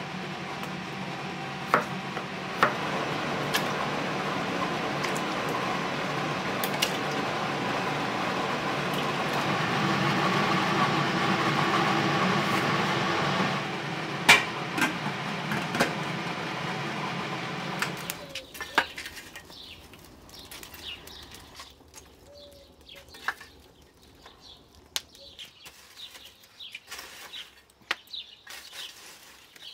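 Kitchen work over a steady hum: a knife clicking on a wooden cutting board, then metal clinks of a steel pot and its lid. After that it goes quieter, with scattered small clicks as glowing charcoal embers are raked with a poker.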